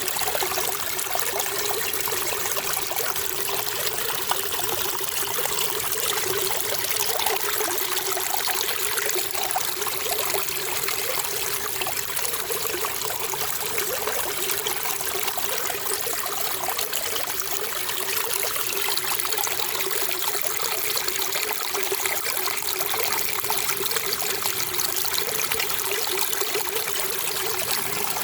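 Running water trickling and splashing steadily, a continuous hiss with no pauses or changes.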